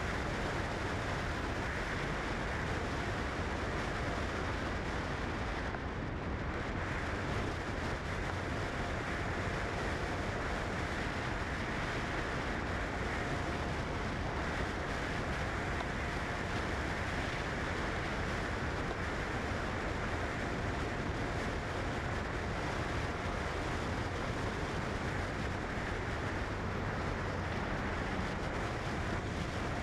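Steady road and wind noise of a car driving at an even speed, with a faint steady hum coming and going.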